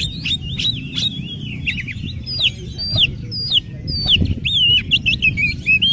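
Oriental magpie-robin singing a fast, varied song of short whistles, rising and falling sweeps and chirps, one note after another.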